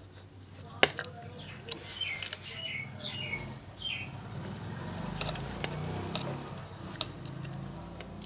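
Ceiling fan wires being handled and joined: sharp clicks, the loudest about a second in, and short scratchy squeaking strokes as the leads are twisted and rubbed together.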